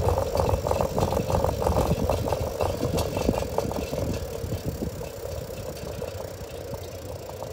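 A bicycle rolling over asphalt, its frame and parts rattling fast and irregularly over a low rumble; the rattling thins out and fades in the second half.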